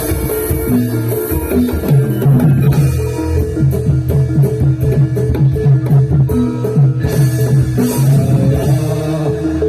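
Javanese gamelan music accompanying a jathilan dance: kendang drums playing busy strokes over repeating notes from struck bronze instruments.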